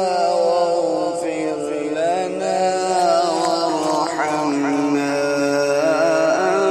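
A man reciting the Quran in the melodic tajwid style, drawing out long, ornamented notes whose pitch wavers and glides.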